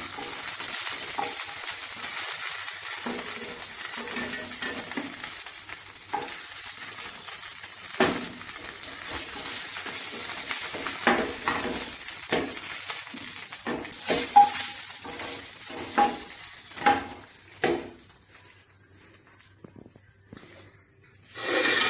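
Spatula knocking and scraping against a non-stick pan and a plate as banana-leaf fish parcels are lifted out, a dozen or so sharp knocks, over a soft sizzle of the parcels in oil that fades away about three-quarters of the way through.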